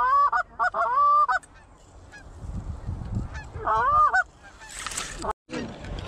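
Canada geese honking: short clipped honks, then longer honks sliding upward in pitch over the first second and a half, and another short run of honks about four seconds in. A brief rustle near the end.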